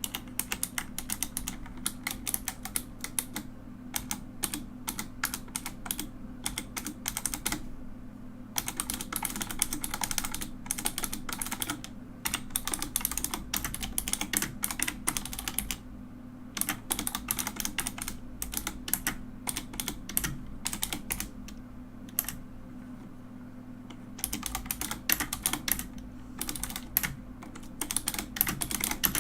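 Mechanical keyboard typed on in quick runs of keystrokes, the key clicks and clacks coming in bursts with short pauses between them.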